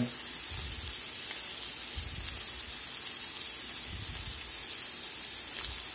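Ground pork frying in a stainless steel skillet: a steady sizzling hiss with a few faint crackles.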